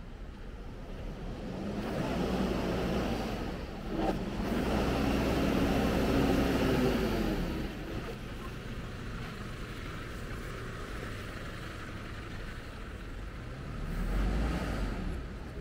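Road traffic: motor vehicles going past close by, one long swell over the first half and a shorter one near the end, over a steady street hum. The recording plays in reverse.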